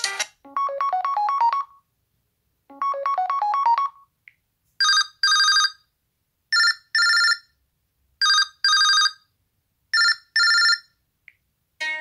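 LG G6 ringtones playing. First comes a short rising melodic phrase, played twice. Then a different ringtone takes over: a telephone-style double ring that repeats four times, about every second and a half to two seconds.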